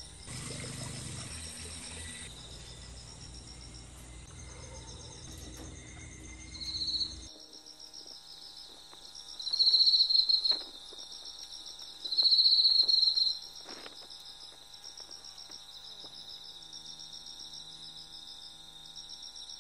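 Night insects, crickets among them, chirping in fast-pulsed high trills throughout. Two much louder buzzing calls come about halfway through, each lasting about a second and a half.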